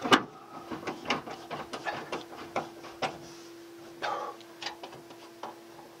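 Ratchet socket wrench clicking in short, irregular strokes as it tightens the nut holding a new dryer drum roller on its shaft. A faint steady hum comes in about halfway through.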